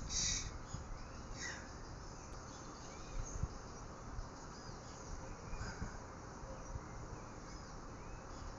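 Faint steady background noise with a few soft knocks and scattered faint, short high chirps.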